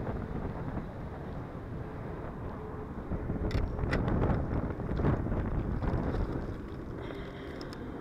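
Wind buffeting the microphone, a low rumble that swells and eases, with a few sharp clicks from handling about halfway through.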